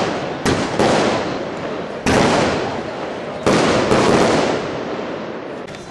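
Aerial fireworks going off. There are five sharp bangs: one at the start, two close together about half a second in, one about two seconds in and one about three and a half seconds in. Each bang trails off slowly.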